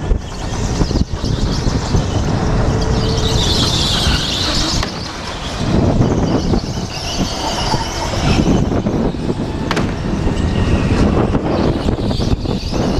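Racing go-kart driven hard around an indoor track, heard from the driver's helmet: a steady rush of kart running noise and wind on the microphone, with a hissing swell about four seconds in.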